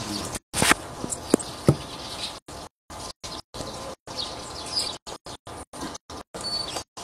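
Small birds chirping in short high calls, with a few sharp knocks in the first two seconds; the sound keeps cutting out in brief gaps.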